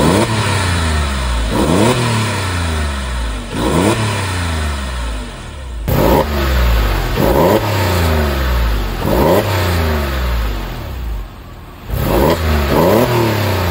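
Porsche 911 flat-six engine revved in repeated short blips that climb and fall back to idle. It runs first through the stock exhaust. After a cut about six seconds in, it runs through the modified mufflers, which give the deeper tone the owner wanted.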